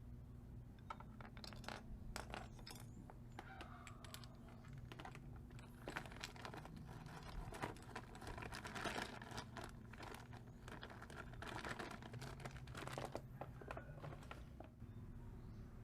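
Hand tools and small metal parts clicking, tapping and rattling in irregular clusters during motorcycle clutch work, over a steady low background hum.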